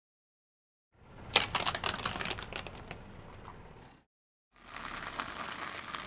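A Christmas bauble crushed under a car tyre: a quick run of sharp cracks and crackles, the loudest about a second and a half in, dying away by four seconds. After a short silence, a car tyre rolls over small sweets with a rough hiss and a few clicks.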